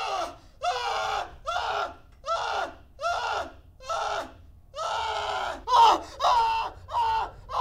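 Frantic screaming: short, high cries over and over in quick succession, each falling in pitch at its end, the loudest a little under six seconds in.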